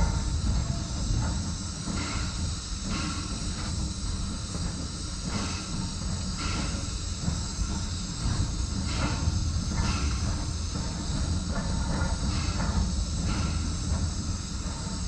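Nevada Northern Railway No. 40, a Baldwin 4-6-0 steam locomotive, rolling slowly: a steady hiss of steam over a low rumble, with irregular knocks every half second or so.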